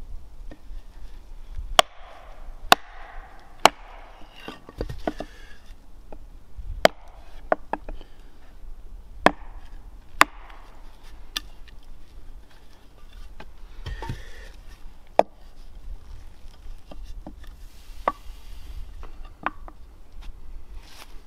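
Hatchet chopping and splitting small pieces of wood on a log: about ten sharp wooden knocks at irregular intervals, with softer rustling between blows.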